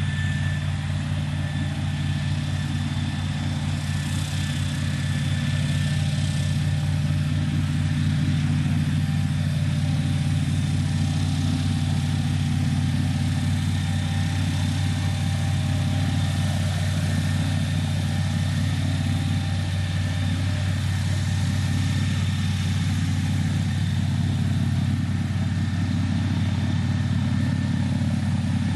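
Airboat engine and propeller running steadily at a low, even pitch.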